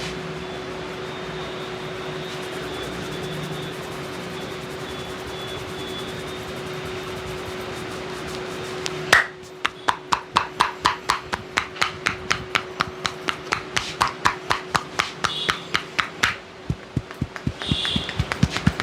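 Rapid, rhythmic hand slaps and taps of a barber's percussive head massage, about four to five a second, starting suddenly about nine seconds in. Before that, a steady hiss with a constant hum.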